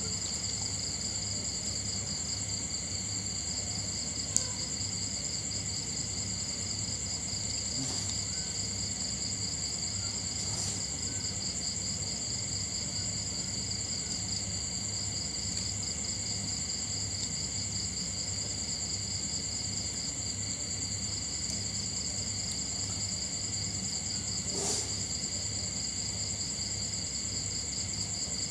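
Steady chorus of crickets trilling, with a sharp click about four seconds in and a soft brief sound near the end.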